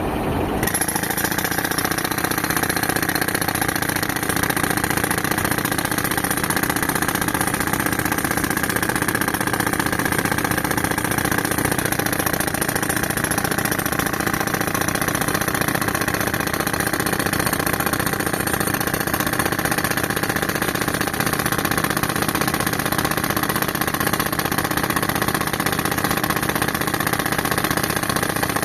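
Pneumatic breaker (jackhammer) hammering rapidly on a reinforced-concrete beam. It starts about half a second in and runs steadily over the engine of the tractor that drives the air compressor.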